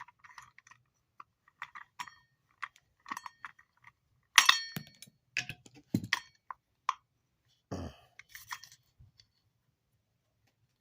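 Scattered clicks, clinks and knocks of metal and plastic parts of a salvaged electric motor being handled during teardown, the loudest a ringing metal clink about four seconds in. The handling stops about nine seconds in.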